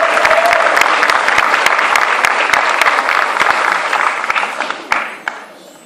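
Audience applauding. The clapping thins out about four seconds in and ends with a few last claps.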